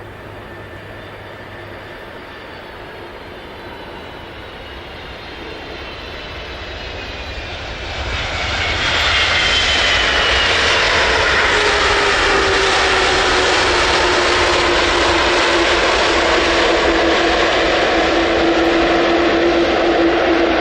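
Jet aircraft engines growing louder as the plane comes close, loudest from about 8 seconds in. The steady engine whine slowly drops in pitch.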